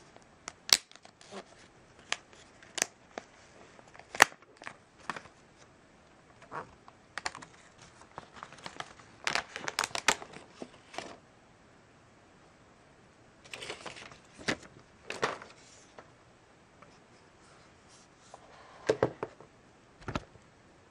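Hands handling an iPad mini and its clear plastic wrapping: scattered sharp clicks and taps with short bursts of plastic crinkling, the busiest spell a little after the middle.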